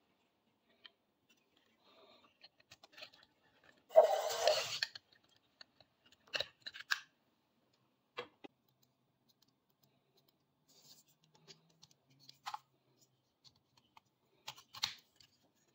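Hard plastic toy parts being handled: a loud scraping rattle about four seconds in, then scattered clicks and snaps as a plastic axe accessory is fitted to a robot figure's hand and its arm is moved.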